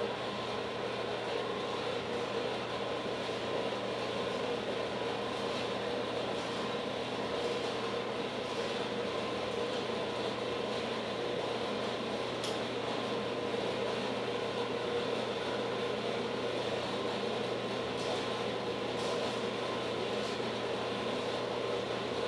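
Dayton horizontal metal-cutting bandsaw running steadily, a constant hum of the motor and blade drive with a few faint ticks.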